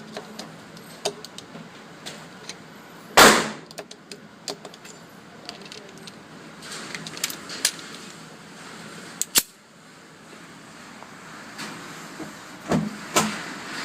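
Gunshots: one loud shot with a short echo about three seconds in, a sharper crack a little after the middle, and two more shots close together near the end, with small clicks of gun handling in between.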